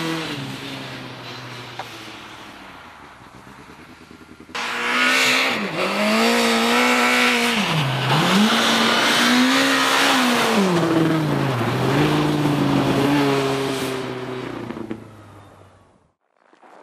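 Car engine revving hard, its pitch rising and falling repeatedly as it drifts around an ice track. At first it fades as the car pulls away. After an abrupt jump about four and a half seconds in, it is much louder, with several deep drops and climbs in revs, then fades out near the end.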